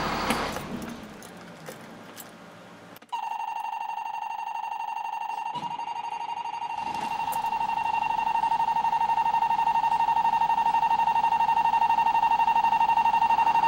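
Motorhome dashboard warning buzzer sounding a steady high tone, starting suddenly about three seconds in and holding, slightly louder later on. It sounds with the ignition on and the warning lights lit, low oil and low air pressure among them, as the dash lights are checked.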